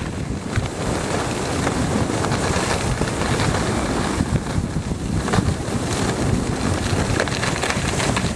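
Wind rushing over the microphone at speed down a groomed ski run, with the hiss and scrape of edges carving packed snow through the turns.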